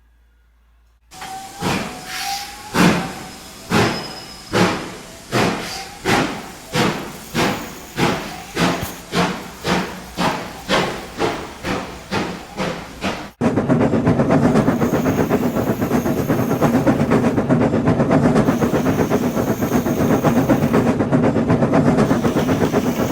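Steam locomotive sound effects from a Hornby model train: exhaust chuffs start slowly about a second in and quicken steadily, like a locomotive pulling away. About halfway through they change suddenly into a steady, dense rushing hiss.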